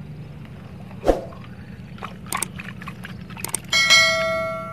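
A few light clicks and knocks, then a bell-like ding about three and a half seconds in that rings on and fades over more than a second.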